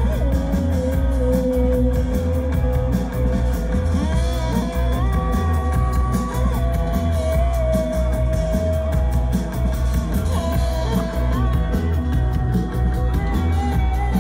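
Live rock band playing: electric guitar holding long sustained notes that step up in pitch a few seconds in, over a steady drum beat and heavy bass.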